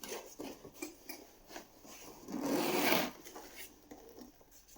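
A Britax Römer child car seat being handled: its fabric cover and plastic shell rub and click, with a longer, louder scraping rub about two and a half seconds in.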